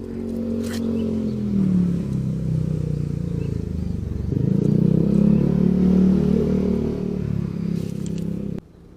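A small engine running close by, its pitch dropping about two seconds in and rising again after about four and a half seconds; it cuts off suddenly near the end.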